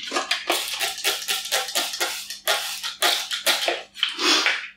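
Hand trigger spray bottle misting water: a quick run of short hissing squirts, about four or five a second, with brief pauses between runs.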